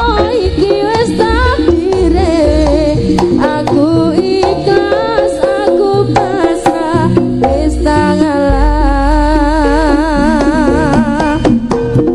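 Background music: an instrumental passage of a Javanese pop song, with hand-drum percussion under a wavering melody line.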